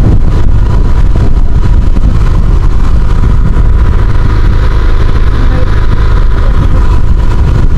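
Engine running steadily aboard a motorized outrigger fishing boat: a loud, low, unbroken drone with a thin steady whine on top.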